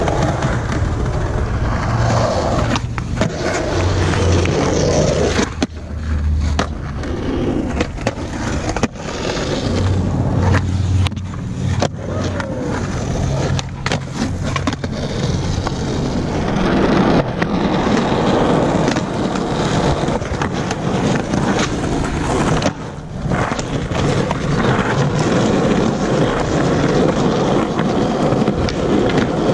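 Skateboard wheels rolling on concrete, a steady grinding rumble broken again and again by sharp clacks of the board popping and slapping down as skaters do tricks.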